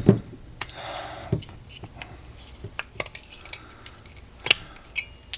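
Parts of a Master Replicas Darth Vader lightsaber hilt being handled and taken apart: scattered light clicks and metallic clinks, the loudest about four and a half seconds in.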